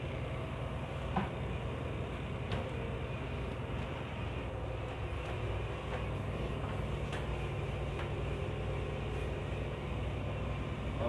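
Steady low drone of a ship's running machinery heard inside the accommodation, with a few faint clicks and knocks scattered through it.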